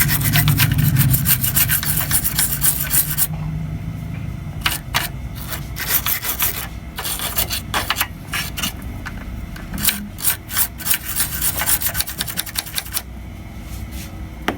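Scrubbing the corroded audio IC on a TV's circuit board clean with thinner. Rapid continuous scrubbing strokes for about three seconds, then shorter spurts of strokes, lighter near the end.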